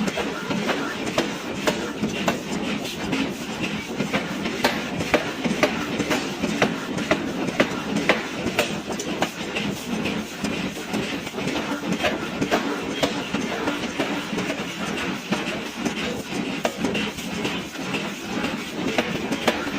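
1000 kg pneumatic forging hammer striking a billet in a rapid, steady run of blows over constant machine noise, drawing the billet out to a square section.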